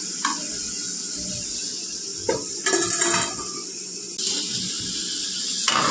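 Potato cheese balls deep-frying in oil on a low flame, a steady sizzle, with a few clinks of a steel slotted spoon against the metal pan about two to three seconds in.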